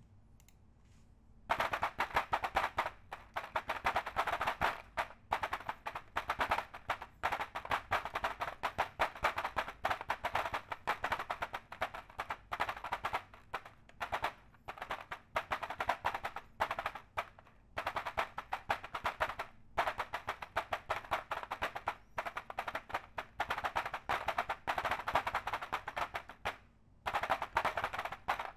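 Fast typing on a custom mechanical keyboard: dense runs of clacking keystrokes lasting a few seconds each, with short pauses between them, starting about a second and a half in.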